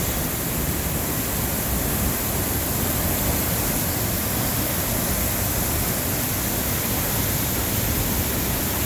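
Tegenungan Waterfall's falling water making a steady, loud rushing roar.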